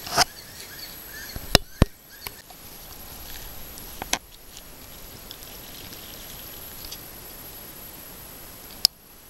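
Steady outdoor background at a pond with a few faint chirps, broken by sharp clicks and knocks, the loudest two close together about a second and a half in, with single ones near the start, about four seconds in and near the end.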